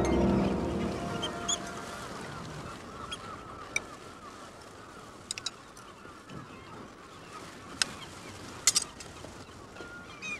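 Music fades out in the first second, leaving a flock of birds calling steadily in the background. A few sharp clinks of cutlery on plates sound through it.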